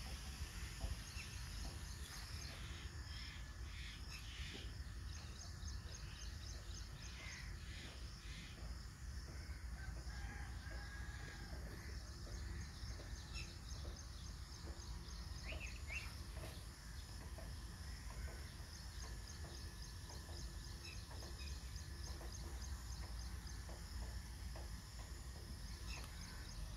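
Faint farmyard ambience: a steady low wind rumble on the microphone, with quick trains of high chirping and occasional short bird calls.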